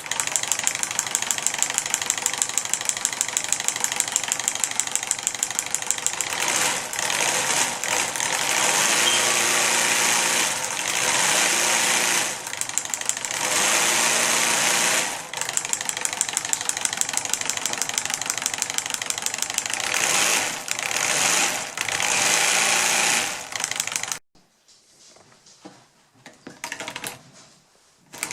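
3D-printed V8 solenoid engine model running, its solenoids snapping the pistons in a rapid clatter, with the pace rising and falling several times. It stops about 24 seconds in, leaving only faint sounds.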